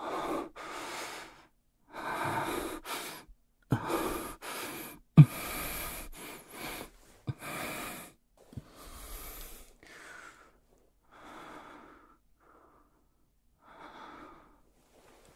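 A man's breathing close to the microphone: a run of audible breaths in and out, each about a second long, growing softer and further apart toward the end. A sharp click about five seconds in.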